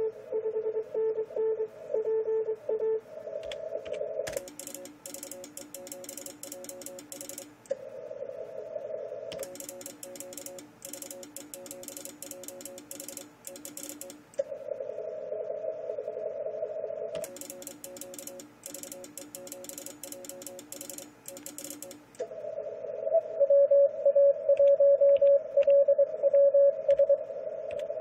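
Morse code (CW) on an Icom IC-756PROIII transceiver during a contest. Stretches of received Morse signals at a mid pitch take turns with the station's own keyed sending, which is heard as a fainter lower tone with rapid clicking. A louder received signal comes in about two-thirds of the way through.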